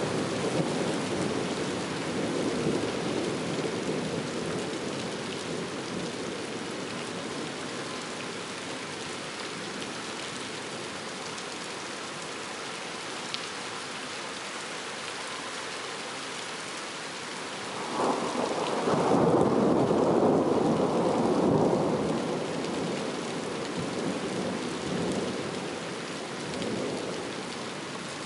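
Thunderstorm: steady rain with thunder. A low rumble fades over the first few seconds, then a new peal starts abruptly about eighteen seconds in, rolls loudest for a few seconds and dies away in a couple of swells.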